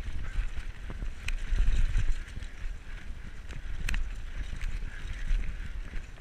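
Diamondback Recoil 29er mountain bike riding over a dirt trail: tyre rumble and wind buffeting the camera microphone, with sharp clicks and rattles from the bike, the loudest about four seconds in.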